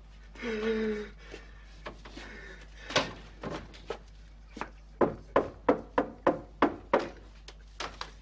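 Knocking on a wooden door: a few separate knocks, then a quick, even run of knocks at about three a second. A short held vocal groan comes just before the knocking.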